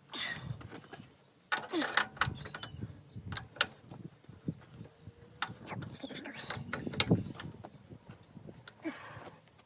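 Irregular clicks, knocks and short creaks of a stuck threaded fitting on a dumper's joystick control being worked loose by hand, the thread starting to give.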